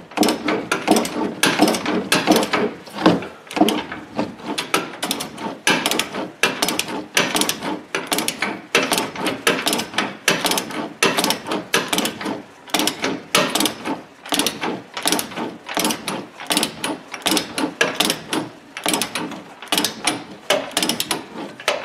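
Ratchet wrench clicking in quick, repeated strokes as it tightens the upper control arm bolts, which are being torqued to about 130 foot-pounds.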